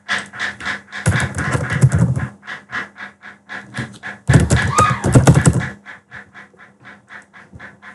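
Typing on a computer keyboard: rapid key clicks in two fast, loud flurries, about a second in and again past the middle, then slower single key presses.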